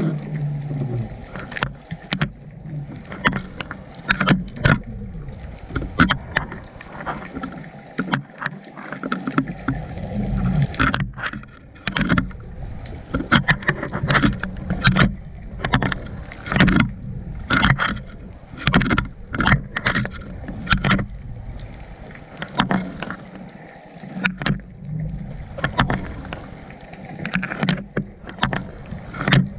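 Underwater sound picked up by a GoPro in its waterproof housing on the sea floor: a low, muffled rumble of water with many irregular clicks and knocks.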